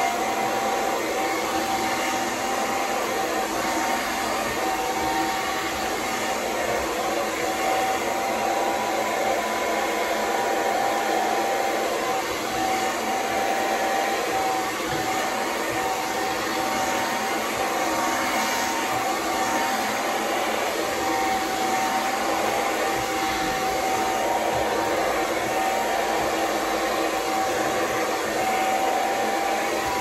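Conair Silver Bird handheld hair dryer running on its high heat and high airflow settings: a continuous rush of air with a steady whine.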